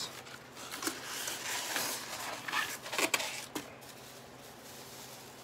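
Clear plastic bag rustling and crinkling as a goblet is pulled out of it, with a few sharper crackles; it dies down about three and a half seconds in.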